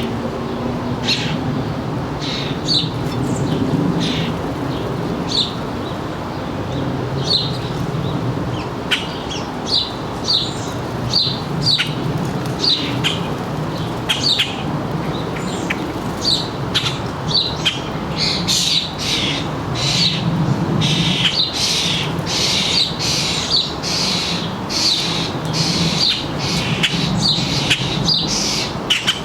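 Backyard songbirds chirping over and over in short, high chirps, growing busier and more overlapping about two-thirds of the way through, over a steady low rumble.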